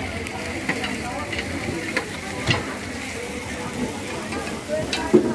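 Food sizzling as it is stir-fried on a hot pan, with scattered clicks and knocks of a metal utensil against the pan, the loudest knock near the end.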